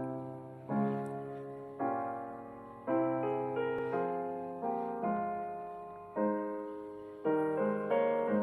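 Soft solo piano music: chords struck about once a second, each fading before the next.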